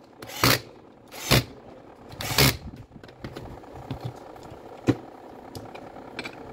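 The motor housing and parts of a dismantled Makita BO5030 orbital sander being handled: three loud, short bumps in the first few seconds, then several lighter clicks.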